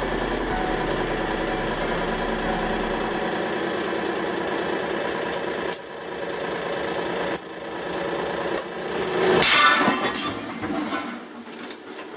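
Hydraulic press pump motor running with a steady hum while the ram loads a bulletproof-vest plate under rising pressure. About nine and a half seconds in there is a loud sudden noise from the load, followed by scattered clicks.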